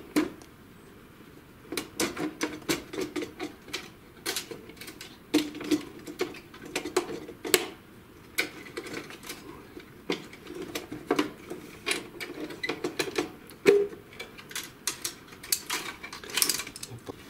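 Irregular clicks, knocks and scrapes of plastic and sheet-metal inkjet-printer parts being handled, as the carriage and rail assembly of an HP Smart Tank printer is worked loose from its catches and lifted out of the housing.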